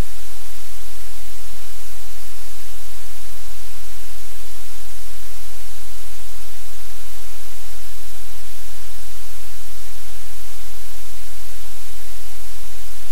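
Loud, steady static hiss with a low hum underneath, unchanging throughout, with no distinct sounds standing out.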